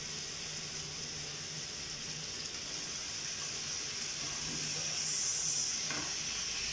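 Food sizzling in a frying pan on the stove: a steady high hiss that swells a little about five seconds in.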